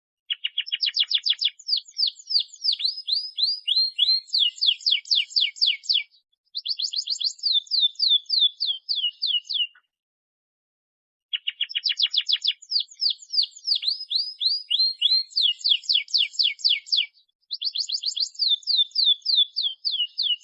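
Domestic canary singing a long, rapid trilled song of quick down-slurred notes, changing from one fast trill to the next. The song comes in two long phrases with a short pause between them.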